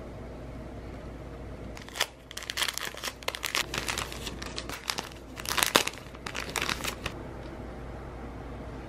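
A clear plastic packaging bag crinkling as it is handled and pulled away. It is a run of crackly rustles that starts about two seconds in and stops about seven seconds in, loudest a little past the middle.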